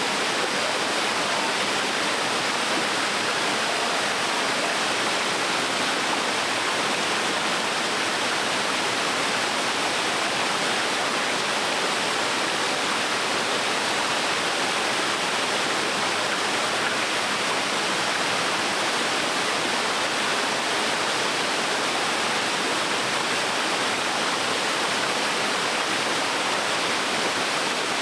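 Small waterfall on a stream, water falling and splashing in a steady, even rush.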